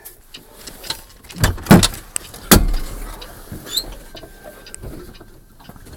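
Rustling handling noise with several loud knocks, the loudest about a second and a half in and again about two and a half seconds in.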